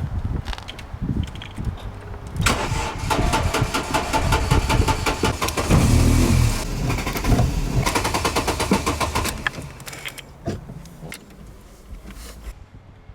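Seat Cordoba's engine being cranked on the starter in two long goes, firing briefly in between and dying away again. It is a hard start on a stubborn car that keeps stalling.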